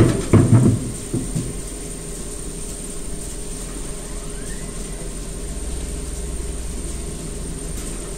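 Jurmet paper core cutter running with a steady mechanical hum while a cardboard core is fed and cut, after a burst of heavy clunks in the first second.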